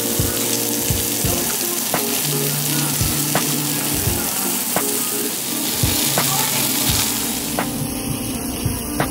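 Meat sizzling on a tabletop barbecue grill, a steady hiss, over background music with a steady beat.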